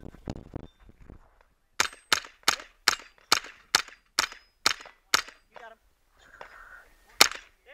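A .22 rimfire carbine fired rapidly at steel targets: a run of about ten shots a little under half a second apart, starting about two seconds in, then a pause and one more shot near the end.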